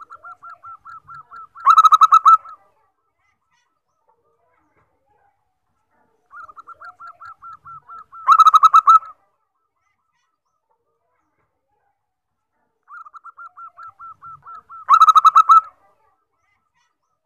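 Zebra dove (perkutut) singing three song phrases about six and a half seconds apart. Each phrase is a run of soft, quick notes that leads into a short, loud burst of rapid cooing notes.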